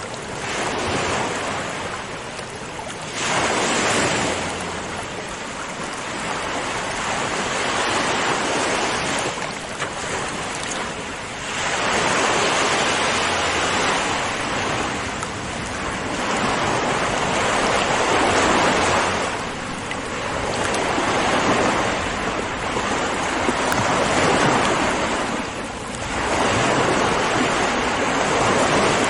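Ocean waves breaking and washing on a shore: a continuous rush of surf that swells and eases, with a louder wave coming in every six to eight seconds.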